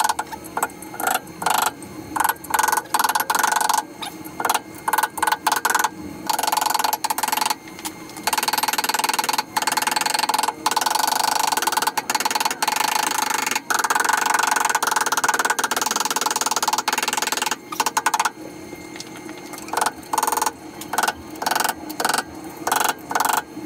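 A red mallet tapping Darton MID cylinder sleeves down into an aluminum LS engine block, many quick knocks, in places so fast they run together, as the sleeves are driven in and kept straight.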